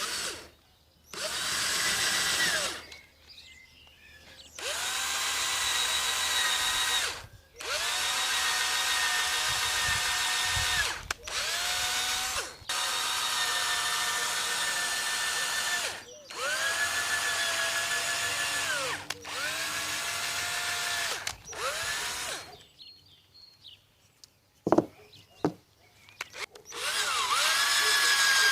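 Electric drill run in about eight short bursts, each spinning up, holding a steady whine, then winding down, as it drills holes in wood. A couple of knocks come in the longer pause near the end.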